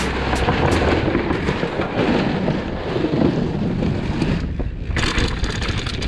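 Mountain bike riding fast down a dirt bike-park trail: wind buffeting the microphone over the rolling tyres and the rattle of the bike, a dense low rumble with scattered clicks. The noise thins briefly about four and a half seconds in.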